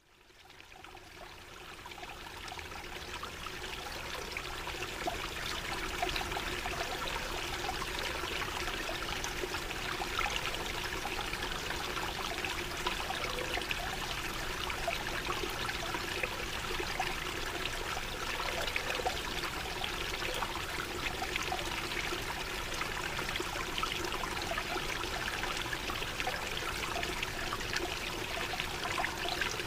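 Running water trickling and splashing steadily, like a small stream. It fades in over the first few seconds.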